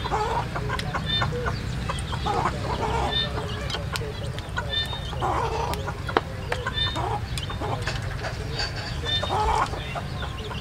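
Chickens clucking, short calls coming every second or so, over a steady low rumble, with a few sharp clicks in between.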